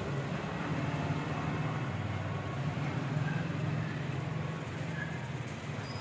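Steady low engine rumble with no clear change.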